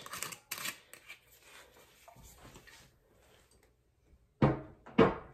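Liquid pouring into a glass, stopping about a second in, then quiet handling. Near the end come two loud knocks about half a second apart, the loudest sounds here.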